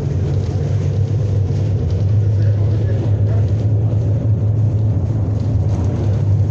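Miami Metromover rubber-tyred people-mover car running along its elevated concrete guideway, heard from inside the car: a loud, steady low rumble of tyres and drive that holds even throughout.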